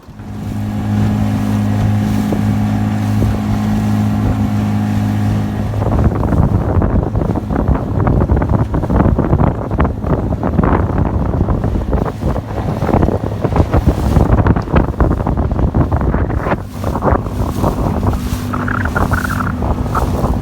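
Small boat's outboard motor running with a steady hum. For about ten seconds in the middle the hum is buried under loud, gusty wind and water noise, and it comes through clearly again near the end.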